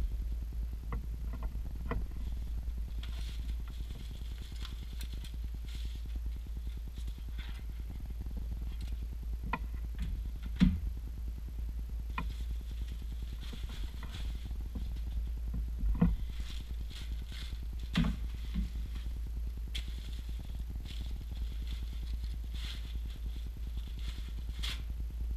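Plastic packaging rustling in patches as a monitor is unboxed, with a few sharp knocks of parts set down on a wooden table, over a steady low hum.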